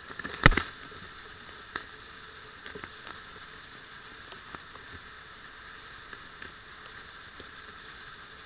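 Waterfall spray falling on a helmet-mounted action camera, a steady hiss of water with scattered ticks of drops hitting the housing. A sharp knock about half a second in.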